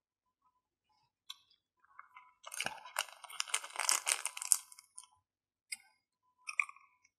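Plastic ice-cream wrapper crinkling as it is picked up and handled, a dense crackling run of about two seconds starting about two and a half seconds in. Near the end come a couple of short crunches as the bar's crisp chocolate coating is bitten.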